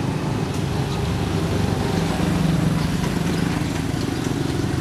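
An engine running steadily at low speed: a continuous low drone.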